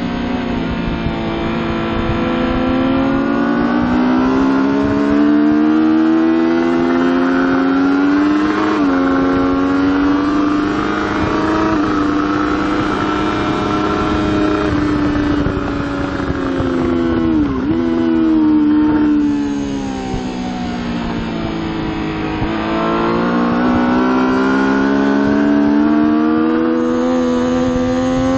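Triumph Daytona 675's inline three-cylinder engine at racing speed, close up on the bike: the revs climb, hold, fall away and climb again, with brief breaks in the note about nine and eighteen seconds in. A constant rush of wind runs underneath.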